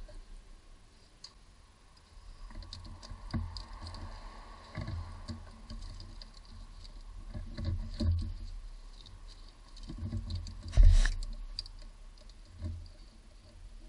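Irregular clicks, taps and light knocks of a socket wrench, extension and metal parts being handled around a starter motor in an engine bay. One sharper knock comes about eleven seconds in.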